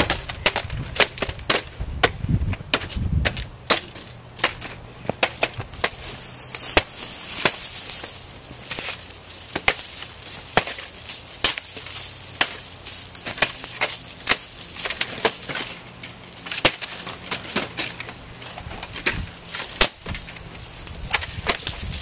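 Irregular sharp cracks and knocks, several a second, as a broken game console's plastic and metal parts are smashed, stomped on and struck with a tree branch.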